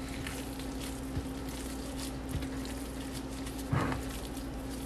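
Gloved hands mixing a raw ground-meat mixture in a glass bowl: soft squishing and plastic-glove rustling over a steady low hum, with one short louder sound about four seconds in.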